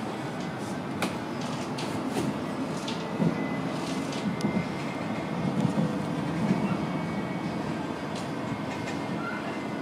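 City tram running at speed, heard from inside the car: a steady rumble of steel wheels on the rails with irregular clicks and knocks and a faint steady high whine.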